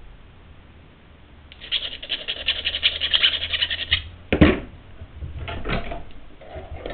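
Hand file rasping in quick, rapid strokes across the cut edge of a short section of metal tube to flatten it off. The filing stops after about two seconds, followed by a sharp knock as the file is set down and some lighter clatter.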